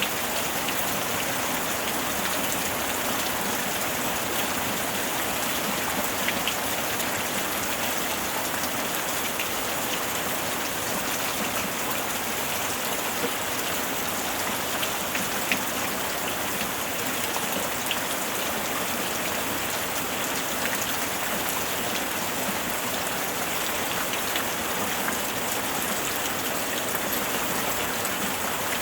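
Steady light rain falling, an even hiss with scattered individual drops ticking on surfaces.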